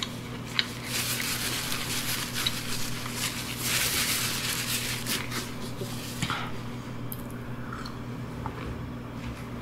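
Paper napkin rustling and crinkling as it is rubbed in gloved hands, for about five seconds and loudest midway. It stops a little after six seconds, leaving a few faint clicks.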